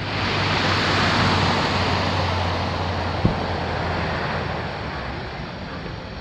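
Surf washing up the sand, swelling in the first second and slowly fading, over a low steady hum. A single dull firework bang comes from across the water about three seconds in.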